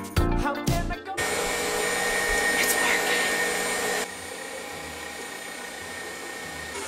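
KitchenAid stand mixer running with its wire whisk, whipping milk and meringue powder into foam: a steady motor whine that starts about a second in and drops in level about four seconds in.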